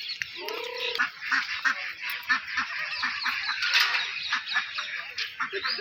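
Many birds calling at once: a dense chatter of short, high chirps, with lower honking calls of ducks or geese mixed in.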